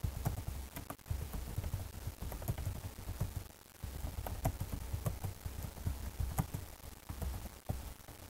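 Typing on a computer keyboard: a quick, irregular run of key clacks with dull thuds beneath, pausing briefly a little before halfway.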